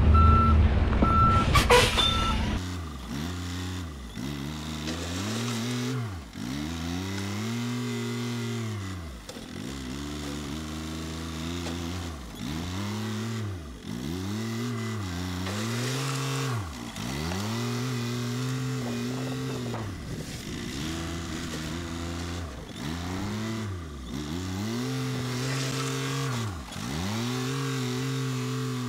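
Dump truck reversing, its back-up beeper sounding over a loud engine rumble, then stopping about two seconds in. Then a front-loader tractor's engine runs at the gravel pile, its pitch dipping and recovering every two to three seconds as the loader works.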